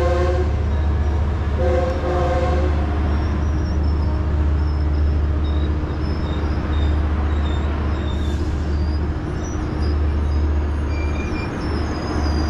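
Metrolink commuter train horn: the tail of one chord blast right at the start and a second short blast about two seconds in, over the steady low rumble of the moving train.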